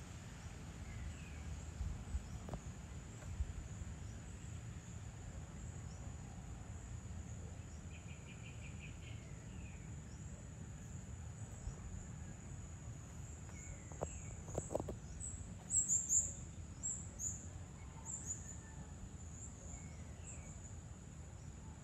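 Outdoor evening ambience: a steady high insect drone over a low rumble, with scattered bird chirps, including a quick run of chirps about a third of the way in. A cluster of sharp, high-pitched chirps about two-thirds of the way through is the loudest sound.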